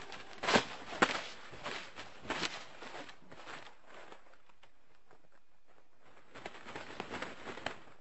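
Irregular clicks, knocks and crackling rustles, loudest in the first second or so, thinning to a quiet stretch in the middle, then a cluster of sharp clicks near the end.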